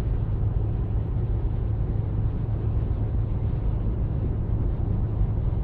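Steady low rumble of a car cruising on a motorway, heard from inside the cabin: road and engine noise with no change in pitch or level.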